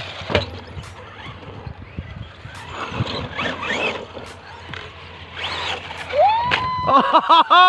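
RC monster truck running and jumping on a rubber-surfaced track: motor and tyre noise with sharp knocks as it lands and tumbles, and the motor revving up about three seconds in. Near the end a loud, long pitched sound with a wavering pitch comes in over it.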